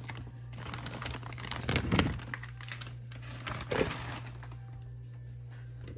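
Packaging crinkling and rustling as it is handled, in three short bursts over the first four seconds, then settling down, with a low steady hum underneath.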